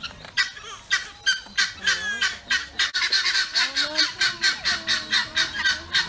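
Guineafowl calling in a long series of short, harsh cackles, quickening to about four a second halfway through.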